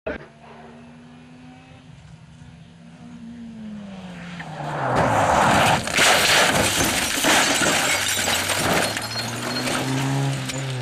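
A rally car's engine note falls away, then from about five seconds in a loud crash follows: the car rolling over with repeated crunching impacts, breaking and scraping for several seconds. Near the end another rally car's engine comes up and passes close by.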